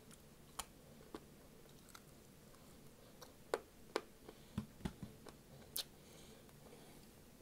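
Quiet eating sounds: a scattered series of short, sharp clicks and smacks as fried ribs are pulled apart by hand and chewed, the sounds bunched together in the middle.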